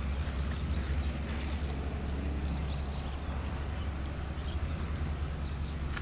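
Wind buffeting the camera microphone: a steady low rumble with a faint outdoor hiss above it.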